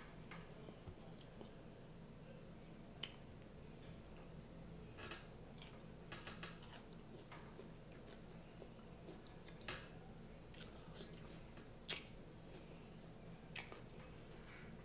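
Snow crab leg shells cracked and snapped apart by hand: scattered sharp cracks and small clicks, the loudest about three seconds in and again near twelve seconds, with quiet chewing between.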